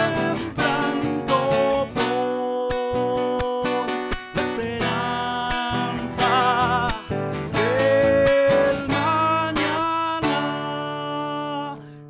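A song on strummed acoustic guitar with a singing voice, which holds long, wavering notes.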